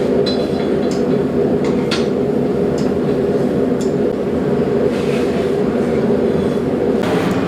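Blacksmith's forge running with a steady, even noise that starts suddenly at the outset, with a few light metal clinks over it.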